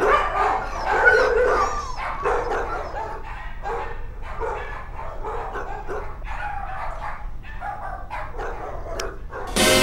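Several kennelled dogs barking and yapping, the calls short and overlapping.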